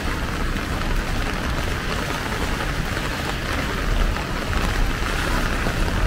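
Steady rain hitting a plastic umbrella overhead and the wet paving, an even hiss of many fine drop ticks with a low rumble underneath.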